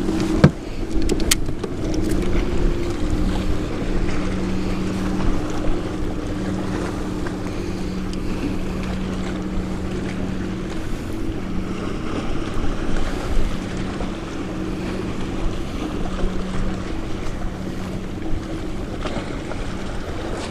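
A sharp knock about half a second in, then a boat motor humming steadily at a constant pitch, with wind on the microphone and water lapping.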